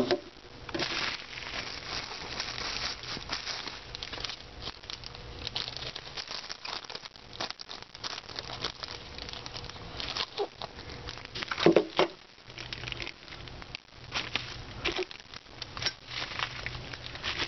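Bubble wrap crinkling and crackling as a package is handled and unwrapped, with irregular rustles throughout.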